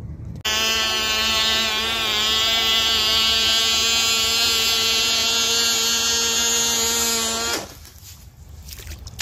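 Cox Water Wizard tether boat's tiny two-stroke glow engine running flat out, a loud, steady high-pitched buzz that starts suddenly about half a second in and cuts off abruptly after about seven seconds, leaving only a much fainter sound.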